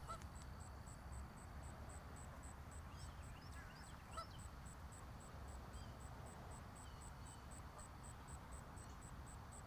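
Faint outdoor ambience: a steady, high-pitched insect chirping at about four pulses a second, with a few faint, short goose calls, the clearest about four seconds in, over a low rumble of wind.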